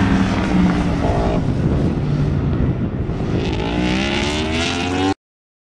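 Yamaha R1 superbike's crossplane inline-four engine at racing speed, its pitch climbing steadily over the last two seconds as it accelerates. The sound cuts off suddenly about five seconds in.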